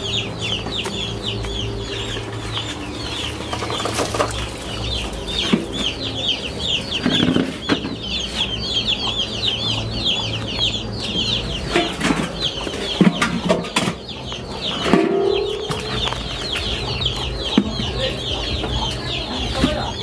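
A crowd of chicks peeping, many short high-pitched calls overlapping without a break. A few brief knocks and rustles break in now and then.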